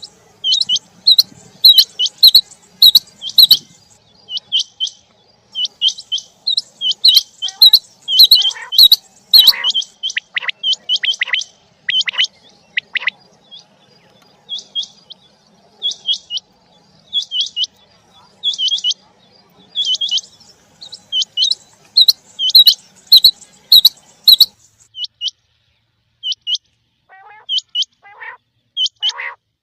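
Quail calling: runs of short, sharp, high notes repeated two or three times a second, with a short pause a little after two-thirds of the way through.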